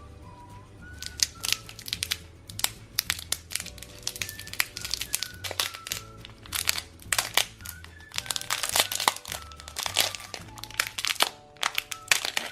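Plastic candy wrapper crinkling as it is handled and peeled off a lollipop, in many sharp irregular crackles, over soft background music.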